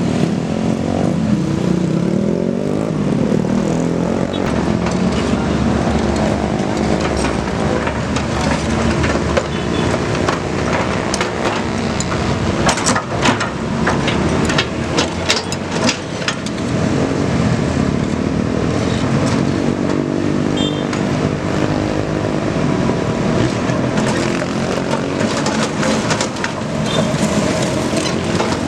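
Komatsu PC200 excavator's diesel engine running under hydraulic load, its pitch rising and falling again and again as the machine works. Through the middle comes a run of sharp knocks and clanks.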